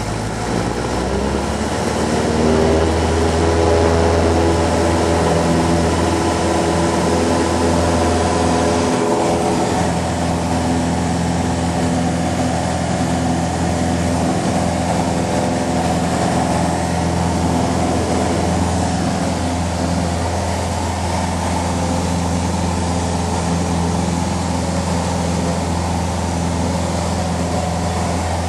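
Cessna 150's Continental O-200 four-cylinder engine and propeller heard from inside the cockpit, rising in pitch about one to two seconds in as power comes up for the takeoff roll of a touch-and-go. It then runs steadily at full power through liftoff and the climb.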